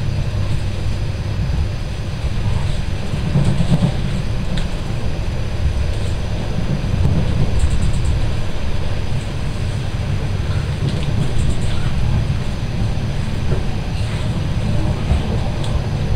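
Passenger train running: a steady low rumble with a few faint clicks.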